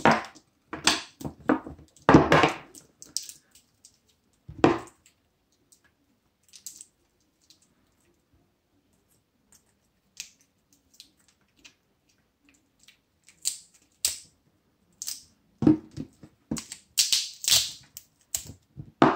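Cutting pliers snipping the small wires between laptop-battery 18650 lithium-ion cells and their protection board, with sharp clicks of the tool and cells being handled. A cluster of snips and clicks in the first few seconds, a quiet stretch with a few faint ticks, then another run of clicks in the last few seconds.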